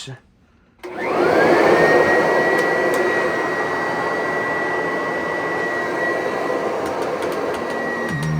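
Kirby Avalir upright vacuum, fitted with a ten-blade aluminium fan from a Sanitronic, switched on just under a second in. Its motor whine sweeps quickly up to a high steady pitch and then runs steadily over a loud rush of air, with the older-sounding tone the metal fan gives it.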